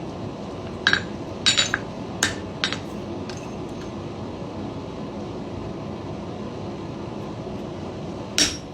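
Light metallic clinks of steel blacksmithing tools against the anvil and workpiece, a quick run of them in the first few seconds and one more near the end, over a steady background noise.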